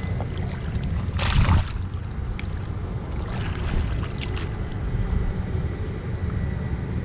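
Wind buffeting the microphone with a steady low rumble, and a brief louder rush of noise about a second in, another weaker one a few seconds later.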